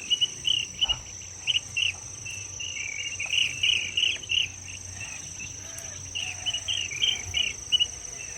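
Insects calling in the outback bush: a steady high-pitched drone with bursts of rapid chirping over it.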